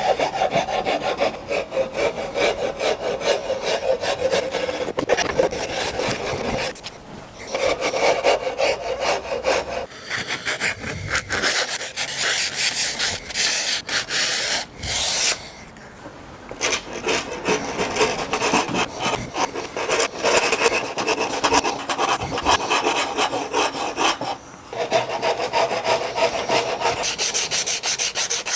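Half-round wood rasp scraping rapidly back and forth over the edges of a wooden stock, rounding off the square corners. The strokes come in long runs with a few short pauses; through the middle stretch the scraping turns brighter and higher.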